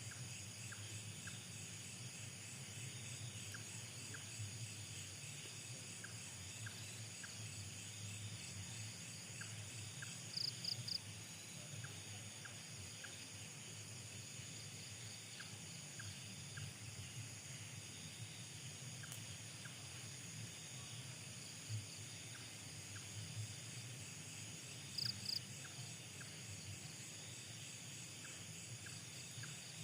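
Night insect chorus: a steady, shrill pulsing trill of crickets and other insects, with short faint chirps scattered throughout and two louder triple chirps, about ten and twenty-five seconds in, over a low rumble.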